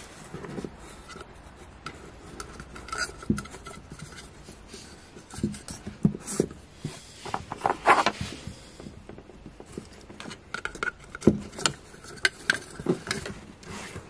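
Hands fitting a gauge and its pod onto a plastic car dashboard: irregular small clicks, taps and light scraping, with a busier, louder run of clicks about eight seconds in.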